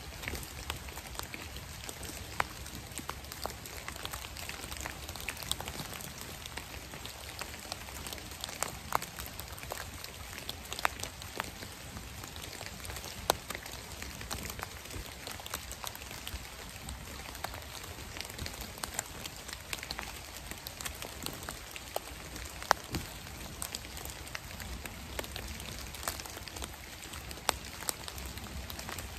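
Light rain and drips from the trees falling on dead leaves on the forest floor: irregular sharp ticks, a few a second, over a steady hiss.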